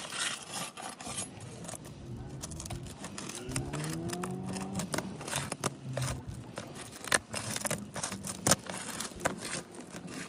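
Asphalt shingle's sealant strip being pried apart gently, with repeated scraping and sharp crackling clicks as the seal lets go. A lower engine-like sound rises in pitch around the middle.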